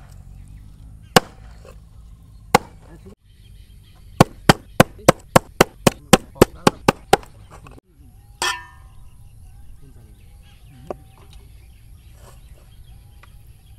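Kitchen knife chopping raw pork belly on a wooden cutting board. It starts with a couple of single strikes, then a quick run of about a dozen chops at roughly four a second, then lighter, slower cutting.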